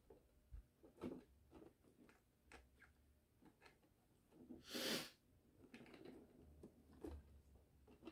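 Faint handling of two cardboard figure boxes on a table: scattered light taps and knocks, with one louder brief rustle about five seconds in.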